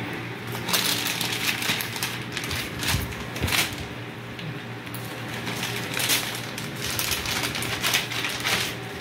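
Clear plastic packaging bags crinkling and rustling as they are handled, in irregular crackles.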